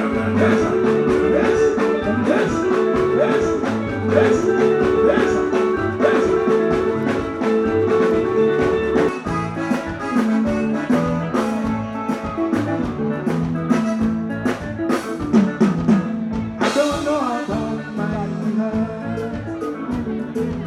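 Live soukous band playing a mostly instrumental passage with a steady drum-kit beat under held notes and guitar lines, with a cymbal crash about seventeen seconds in.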